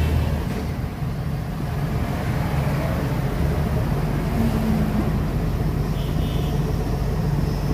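Truck engine and road noise heard from inside the cab while driving: a steady low rumble.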